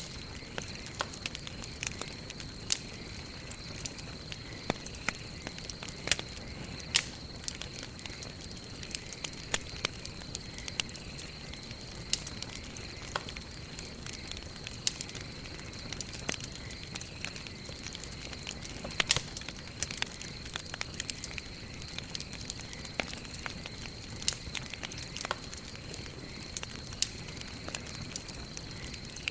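Wood campfire burning, crackling with frequent irregular sharp pops and snaps over a steady soft hiss.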